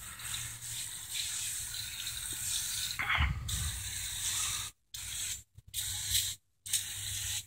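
Aerosol can of Easy-Off oven cleaner spraying onto a car wheel and tire: a steady hiss, broken by a few short silent gaps in the second half.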